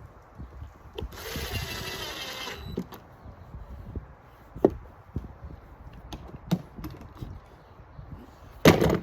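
Power drill driving a screw into a deck board through a pre-drilled hole, running for about a second and a half. Then a few sharp clicks and knocks, with a loud short knock near the end.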